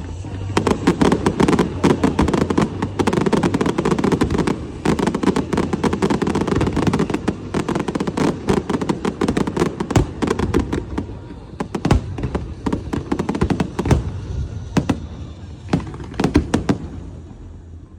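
Fireworks going off in a dense, rapid barrage of cracks and bangs, thinning out to scattered bangs near the end.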